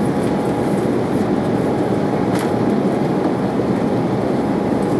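Steady rumble of engine and airflow noise inside the cabin of an Embraer 190 airliner with GE CF34-10E turbofans, with a faint thin steady whine above it.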